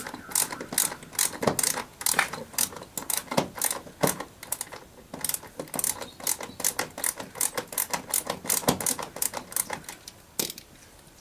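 Phillips screwdriver tightening the small hex-head screws along the bottom of a Toyota Camry's plastic interior door panel: a quick, uneven run of sharp clicks, several a second, that stops about ten seconds in.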